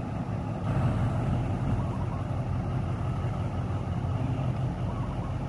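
Diesel locomotive engine running with a steady low drone as the locomotive moves off along the station tracks.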